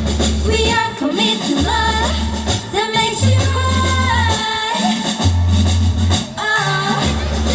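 K-pop dance track with female singing over long, repeated bass notes, played loud over a stage sound system.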